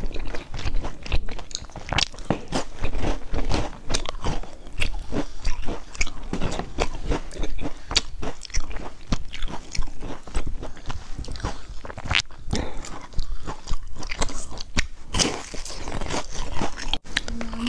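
Close-miked biting and chewing of crisp round sandwich biscuits: many sharp crunches in quick succession.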